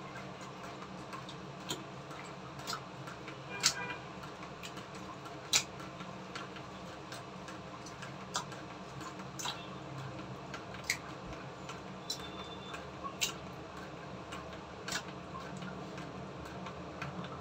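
Marinated chicken pieces mixed by hand in a stainless-steel bowl: scattered sharp clicks and taps as fingers and meat knock against the steel, over a steady low hum.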